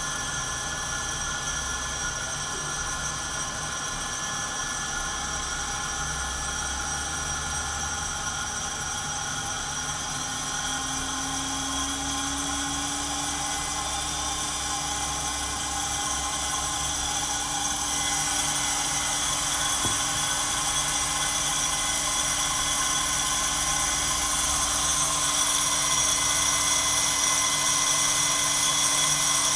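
Santoker Q5 coffee roaster running mid-roast, its fan and motor giving a steady whir. About two-thirds of the way through it grows louder and brighter, with the lid off the roasting chamber.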